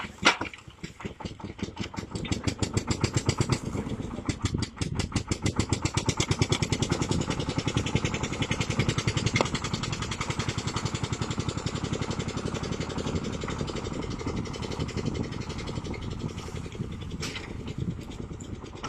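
Engine of a hydraulic tree-pulling machine running with a fast, even chugging beat as it grips a trunk and lifts the tree out by its roots. A sharp knock comes just after the start, and the running is louder in the first half.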